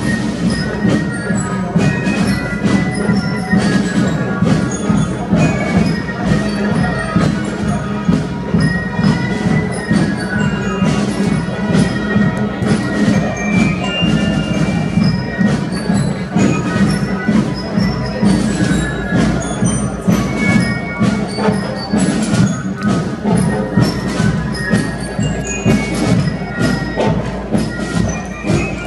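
A German Spielmannszug marching band playing a march: steady drumming with a bright, bell-like melody over it.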